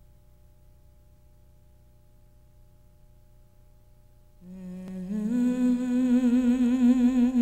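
Faint low hum for about four seconds, then a solo voice comes in singing a slow wordless melody: long held notes with vibrato, stepping up in pitch.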